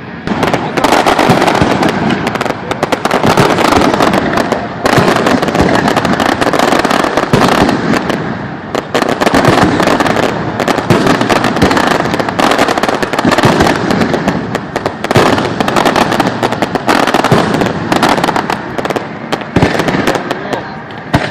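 Fireworks display in full barrage: a dense, unbroken string of overlapping bangs and crackles.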